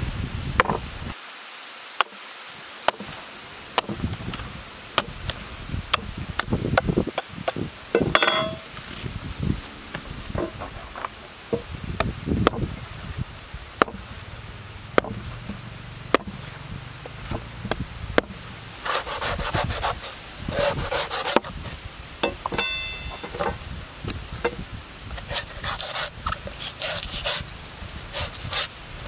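A large knife chopping and shaving the husk of a green young coconut: repeated sharp knocks of the blade biting into the husk, with stretches of rasping scraping as slices are pared off in the second half.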